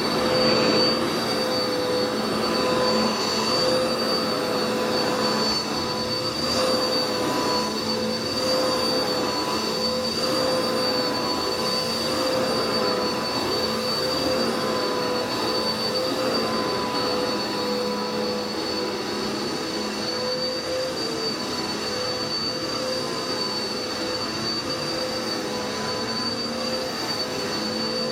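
Dirt Devil vacuum cleaner running steadily, its motor giving a steady whine over the rush of air.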